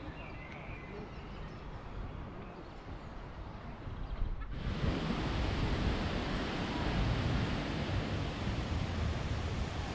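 Outdoor park ambience with wind on the microphone and a faint bird call near the start. About four and a half seconds in, it cuts abruptly to a louder, fuller rush of wind noise.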